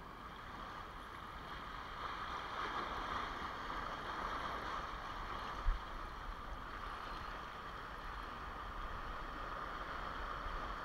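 Small waves washing and fizzing over a rocky shoreline, a steady hiss that grows a little after a couple of seconds, with one soft knock about halfway through.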